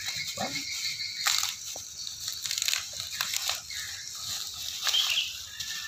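Plastic bubble wrap crinkling and rustling in irregular crackles as it is pulled off and unwrapped by hand.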